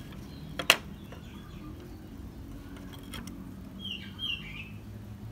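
Scissors snipping while a small leatherette piece backed with double-sided tape is trimmed: one sharp snip just under a second in and fainter ones about three seconds in. A bird chirps a few times about four seconds in.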